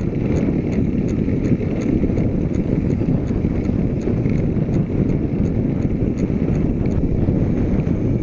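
Steady wind rumble on the microphone of a camera riding along on a bicycle, with light, regular clicks about two a second.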